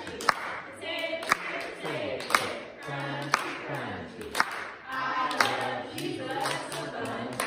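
A group of voices singing a worship song, with sharp hand claps on the beat about once a second.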